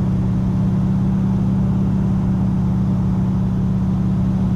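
Steady drone of an AT-6 Texan's Pratt & Whitney R-1340 nine-cylinder radial engine heard from inside the cockpit in cruising flight, even in pitch and level throughout.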